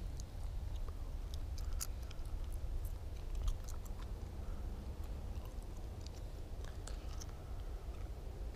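Faint, irregular clicks and ticks from a fishing rod and reel being handled and worked, over a low wind rumble on the microphone.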